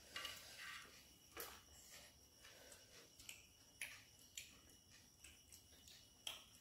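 Faint eating sounds: a few soft clicks and light handling noises as fingers and skewers work pieces of paneer tikka off a steel plate.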